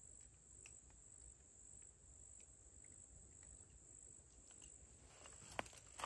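Near silence: a faint, steady high-pitched insect drone, with soft rustling and a few clicks near the end.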